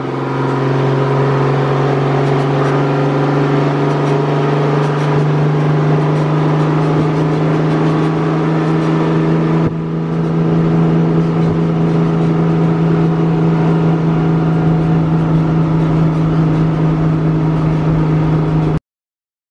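Straight-piped Detroit Diesel 6V92 two-stroke V6 in a 1966 fire truck, running steadily at highway cruise, heard from inside the cab. It dips briefly about ten seconds in, then picks up again until it cuts off suddenly near the end.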